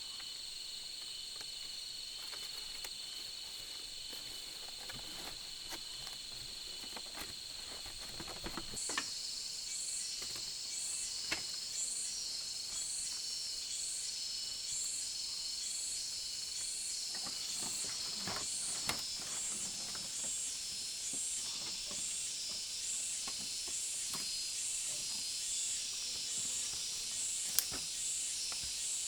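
Rainforest insects calling: a steady high-pitched trill, joined about a third of the way in by a pulsing call that repeats roughly once a second. A few faint clicks are scattered through it.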